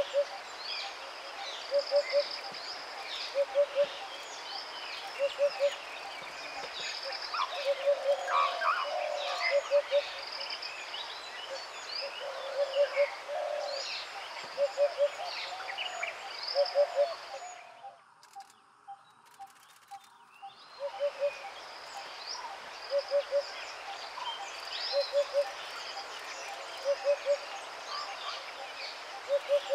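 Birds calling in chorus: a low call of three quick notes repeats about every two seconds over many higher chirps and whistles. The sound drops away for a few seconds about two-thirds through, then returns.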